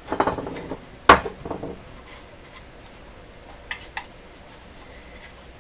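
Hard objects clattering on a workbench: a run of knocks and rattles in the first two seconds, the sharpest about a second in, then two light clicks near four seconds.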